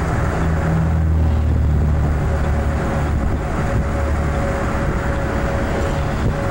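Car driving slowly, heard from inside: a steady low engine and road rumble.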